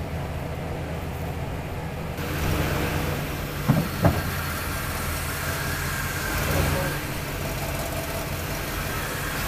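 A vehicle engine idling steadily. About two seconds in a wider rushing noise joins it, and just before four seconds there are two sharp clanks close together.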